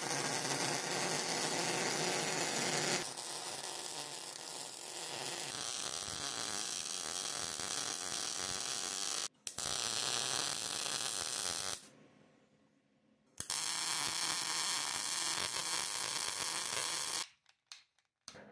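Electric arc welder crackling and buzzing as it welds a stack of steel layers, in three runs. The first is loudest for about three seconds and then drops lower. There is a brief break about nine seconds in, a pause of over a second around twelve seconds, and the last run stops about a second before the end.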